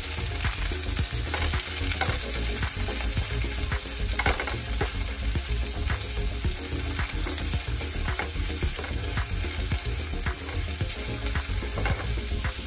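Sliced onions, green chillies and capsicum sizzling in hot oil in a kadai, stirred with a wooden spatula that gives frequent irregular taps and scrapes against the pan.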